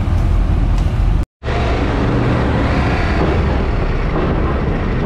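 Heavy wind buffeting an action camera's microphone, a dense, steady rumble with no clear tone in it. The sound drops out completely for a moment just over a second in, then the same rushing rumble resumes.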